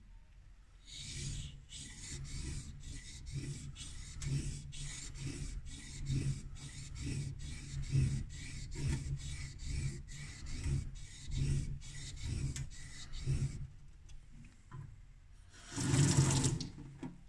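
Back of a laminated Japanese steel blade being rubbed back and forth on a wet waterstone: a steady run of scraping strokes, about two a second, that stops after about thirteen seconds. Near the end comes one brief, louder burst of splashing water as the blade is lifted off the stone.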